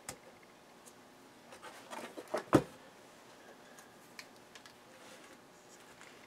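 Handling noise from an ESR capacitor tester and its test probe leads: a click at the start, then a run of knocks and clatter a couple of seconds in, the sharpest knock at about two and a half seconds, as the meter is stood upright on the bench and the probes are picked up. A few light ticks follow.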